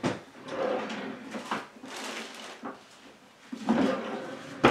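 Rustling and light knocks of things being handled, in short irregular bursts.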